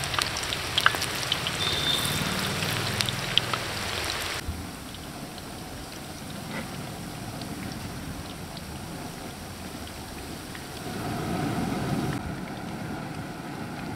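Onion pakoda fritters deep-frying in hot oil in a large kadai: a dense sizzle full of crackles, which drops suddenly about four seconds in to a quieter, steadier sizzle. A low rumble swells briefly near the end.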